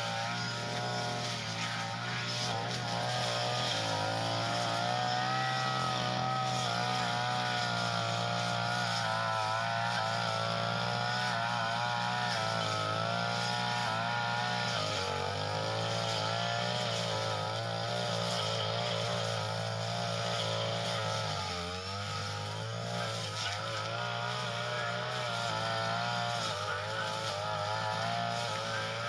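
Small Tanica brush cutter's engine running steadily, its speed wavering and dipping briefly twice, about halfway through and again a few seconds later.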